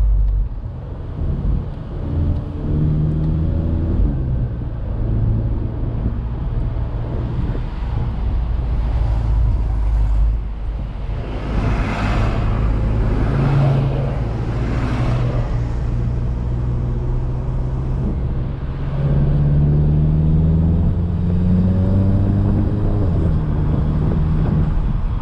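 Turbocharged 2.0-litre four-cylinder of a modified MK7 VW GTI with a DSG gearbox, heard from inside the cabin pulling through the gears. The engine note rises and drops back at each upshift, and there are three loud rushing bursts of turbo and intake hiss about halfway through.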